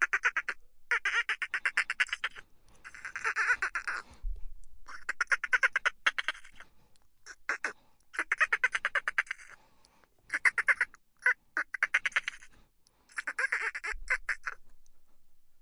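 Dolphins chattering: a rapid series of buzzing, squawk-like bursts of fast clicks, about a dozen in all, each up to about a second and a half long, with short pauses between.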